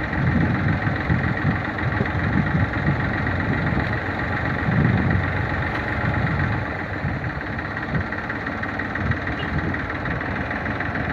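Tafe 45DI tractor's diesel engine running steadily while the tractor sits stuck in deep mud, with a slight swell and ease in its level.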